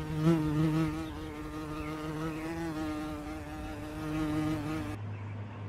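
A flying insect buzzing close by: a steady, slightly wavering drone that stops abruptly about five seconds in.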